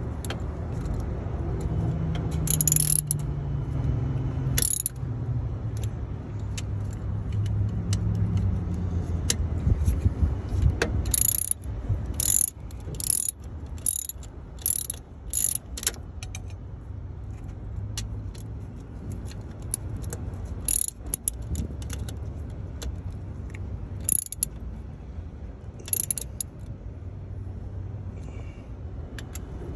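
Metal hand tools clinking against the truck's AC compressor and its mounting bolts as the bolts are worked on: scattered sharp clinks, with a quick run of about two a second in the middle, over a steady low rumble.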